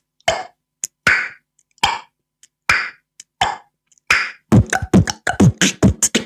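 Beatboxed mouth sounds imitating a table tennis rally: single pops and clicks at uneven intervals, like a ball struck back and forth. About four and a half seconds in, they give way to a quicker, denser run of voiced beats.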